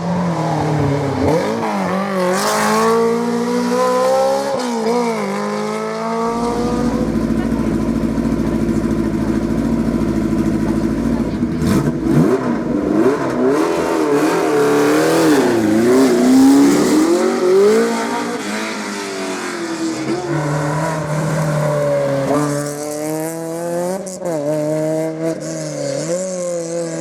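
Rally cars driven hard on a stage: the engines rev up and drop back over and over through gear changes and lifts.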